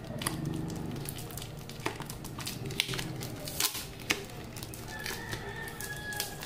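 Brown packing tape being picked at, peeled and torn off the end of a cardboard mailing tube, with irregular crackles and crinkling of the plastic packing inside.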